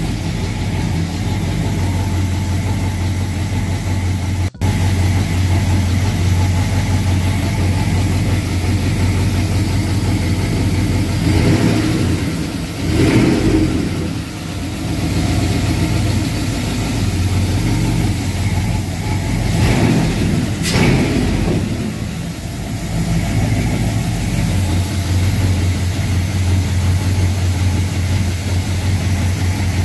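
A freshly swapped GM 4.8-litre LS V8 running steadily at idle, sounding healthy just after its first start. Its note swells louder twice, about a third and two-thirds of the way through.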